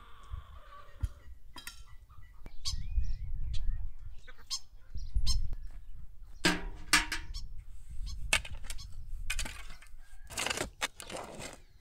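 Chickens clucking and calling, with one longer pitched call about seven seconds in. Near the end, a shovel scrapes and cuts into dry, stony soil.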